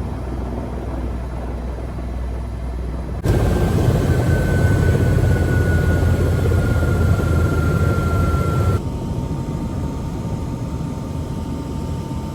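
Airbus EC130 helicopter turbine and rotor running during the landing approach, a steady low rumble. About three seconds in it jumps abruptly louder, with a high turbine whine gliding slowly down in pitch, then drops back abruptly about nine seconds in to a quieter rumble with a fainter steady whine.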